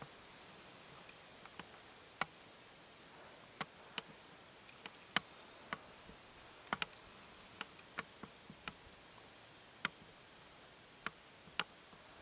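Faint steady hiss broken by about a dozen sharp, irregular clicks, a few of them in quick pairs.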